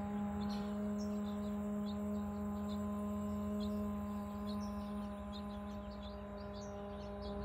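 A woman's voice chanting a long om held on one steady note, with small birds chirping faintly now and then.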